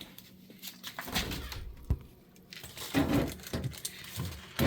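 A few light knocks and clicks, scattered and irregular, from things being handled and put away.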